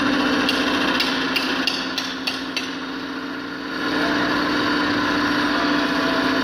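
Machining equipment running with a steady hum. In the first couple of seconds there are about seven sharp taps, roughly a third of a second apart. The machine sound drops a little, then comes back up about four seconds in.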